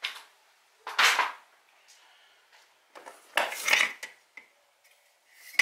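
Welding cables, connectors and packing being handled in a cardboard box: a few short bursts of rustling and clattering, the loudest about a second in and again around three and a half seconds in.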